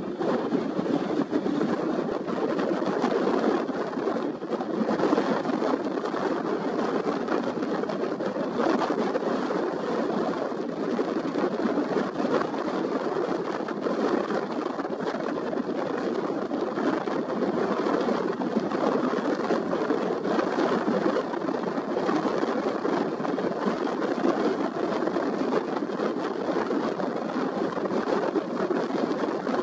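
Strong wind buffeting the camera microphone: a steady, rushing roar with no break.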